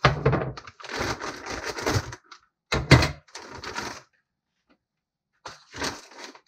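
Plastic packaging bag crinkling and rustling in several bursts as hardware parts are handled and pulled out of it, with a sharp knock on the wooden workbench about three seconds in.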